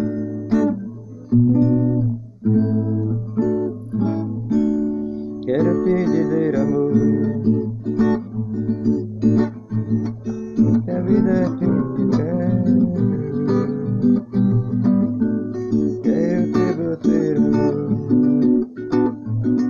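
Guitar music: an instrumental intro of plucked and strummed chords, with a higher melody line coming in about five seconds in.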